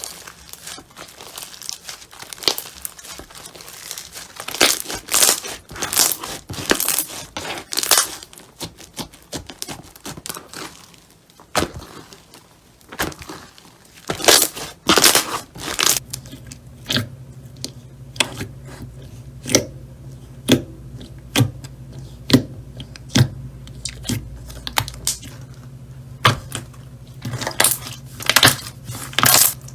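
Slime being worked by hand: clusters of crackling, tearing sounds, then about halfway through a run of sharp pops roughly once a second over a low steady hum.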